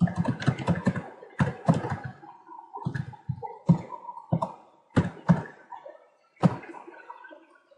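Keys typed on a computer keyboard: a quick run of keystrokes at the start, then single key presses with short pauses between them.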